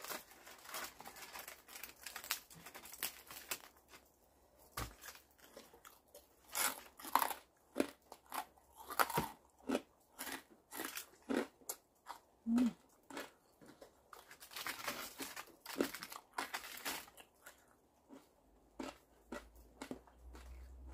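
Close-up eating sounds: chewing and crunching, with the crackle and tearing of grilled shrimp shells pulled apart by hand, in irregular clusters of short sharp clicks.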